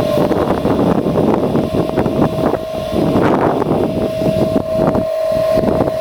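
Wood-gas-fuelled pickup truck running, with a steady whine over a rough rumble and wind buffeting the microphone; the whine drops out briefly about three seconds in.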